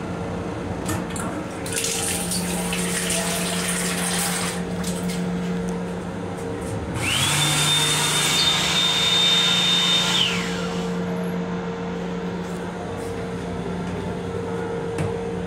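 Automatic sink unit in a Long Island Rail Road M7 car's restroom: the faucet runs water for about three seconds, then the built-in hand dryer starts with a fast-rising whine, blows for about three seconds and winds down. A steady train hum runs underneath.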